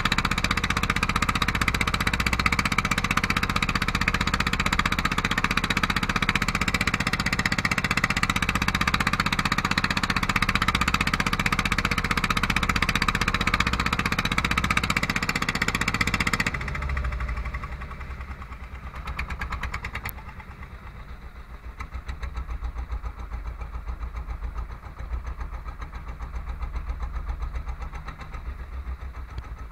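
Fishing boat's engine running steadily at cruising speed under the rush of the bow wave. About halfway through the rushing hiss cuts off abruptly, leaving the engine's quieter, rapid low thudding.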